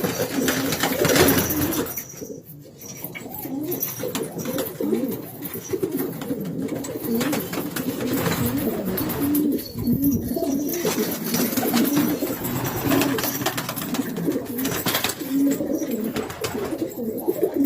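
Several domestic pigeons cooing at once, overlapping low coos, with light scratchy rustling.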